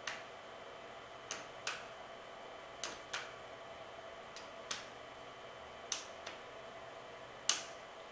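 Sharp clicks from the numbered metal adjustment ring on an Asclepion MCL30 Er:YAG laser handpiece as it is turned by hand, about ten clicks at uneven intervals, several in quick pairs. A faint steady hum runs underneath.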